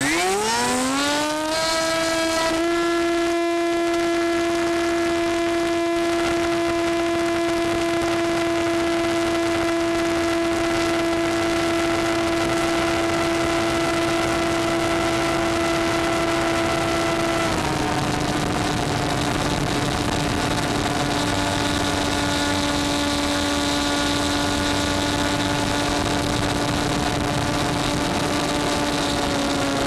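Electric motor and propeller of a model plane running under power, with a rush of air behind it. The pitch climbs quickly over the first two seconds as the throttle opens for take-off, then holds steady. About 17 seconds in it steps down a little as the throttle is eased back.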